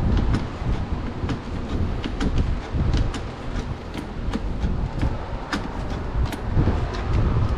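Irregular sharp metallic clicks and clinks of hand tools on metal parts over a steady low rumble.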